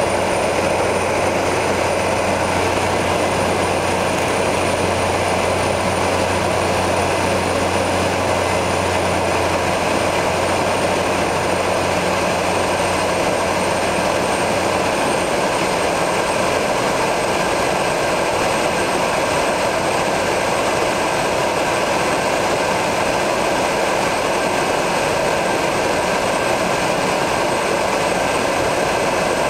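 Turbo Otter's turboprop engine and propeller in flight, heard from inside the cabin: a steady loud drone with a thin high turbine whine that drifts slightly lower. A low hum under it fades away about halfway through.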